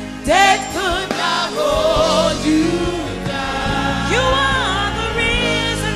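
Gospel choir singing a praise song over instrumental backing. A lead voice sings long, sliding notes with wide vibrato, coming in strongly about a quarter second in.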